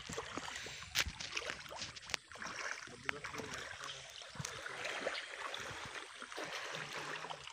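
Shallow stream water rushing and splashing, with several sharp clicks, the loudest about a second in.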